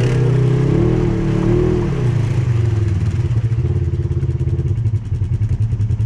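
Four-wheeler (ATV) engine running close to the microphone. Its note rises and falls about a second in, then runs lower with a regular pulse.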